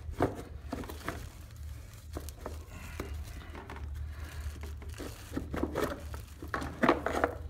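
Plastic airbox of a Linhai 300 ATV being worked loose and lifted out of the frame: scattered scrapes, knocks and crinkling of plastic against metal and gloved hands, busier near the end.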